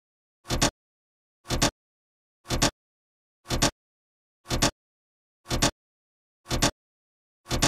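A rhythmic percussive sound effect: a short, sharp double hit repeating about once a second, with silence between, starting about half a second in.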